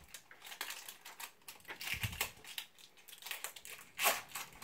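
Plastic blind-bag wrapping from an L.O.L. Surprise ball crinkling and crackling in a child's hands as it is worked open, with a dull bump about two seconds in and the loudest crackle about four seconds in.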